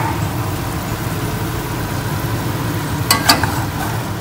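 Tomato sauce sizzling in a pan over a steady low rumble, with a utensil stirring it; a click at the start and two sharp clinks against the pan about three seconds in.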